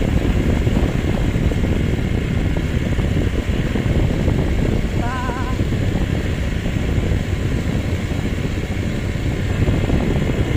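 Motorbike riding along: steady rumbling engine and wind noise buffeting the microphone. About five seconds in a short, wavering high-pitched call rises above it.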